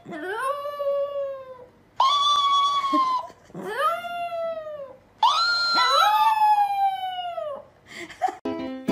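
A Chihuahua howling: four long, drawn-out howls, each rising in pitch and then sliding slowly down, with short breaths between them.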